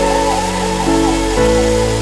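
Background music: sustained chords that change about one and a half seconds in, with a wavering melody line above them.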